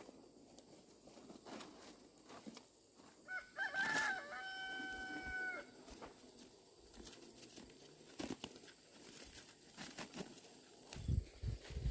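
A rooster crowing once, about three seconds in, wavering at the start and ending on a long held note. Scattered light knocks run through the rest, with a few low thumps near the end.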